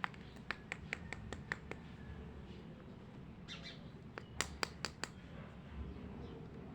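Small plastic toy pieces clicking and tapping as they are handled and fitted together: a quick run of sharp clicks at the start, and another cluster about four to five seconds in.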